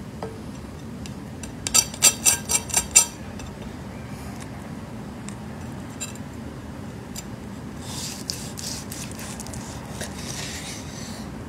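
A chef's knife working on a seared, pepper-crusted steak on a wooden cutting board: a quick run of about seven sharp metallic clicks a couple of seconds in, then a rasping scrape from about eight seconds in as the blade saws through the crust.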